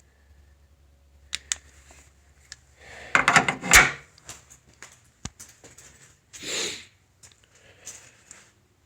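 Clicks and a clatter of parts being handled under the hood as the engine's breather tube is moved, loudest a little after three seconds, with a short rustle about six and a half seconds in.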